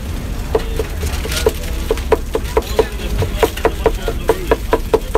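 Cleavers chopping grilled kokoreç (lamb intestines) with tomatoes and peppers on a wooden board. The strikes come in a quick rhythm of about four a second, starting about half a second in, and each knock has a short metallic ring.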